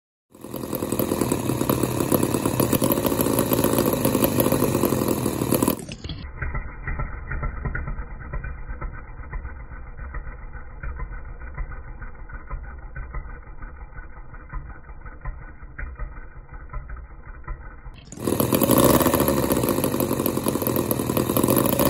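Miniature two-cylinder four-stroke boxer gasoline engine model (3.2 cc, single carburettor) running steadily. About six seconds in, the sound turns quieter and dull for some twelve seconds, then comes back loud and full near the end.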